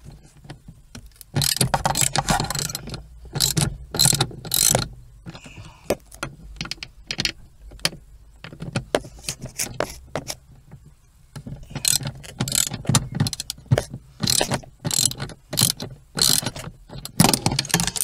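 Socket ratchet clicking as its handle is swung back and forth, undoing the 10 mm bolts that hold an accelerator pedal. The clicking comes in two long spells, with a quieter stretch in the middle.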